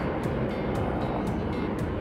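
AH-64 Apache attack helicopter flying past, a steady rush of rotor and turbine noise, with background music laid over it.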